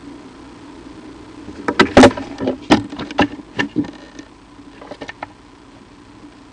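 A quick run of loud, sharp knocks and clatters lasting about two seconds, then a few fainter ones, over a steady low engine-like hum.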